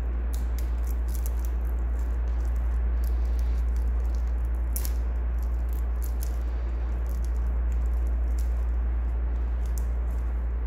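A steady low hum under light, irregular crinkles and clicks as clear protective plastic film is peeled off a stainless steel watch bracelet and its links shift in the hand.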